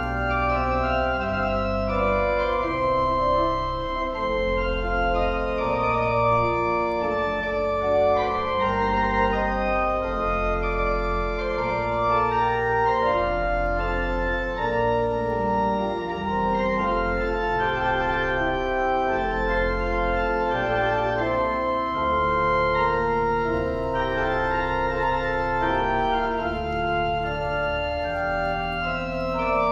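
Organ playing a slow piece of held chords over a moving bass line.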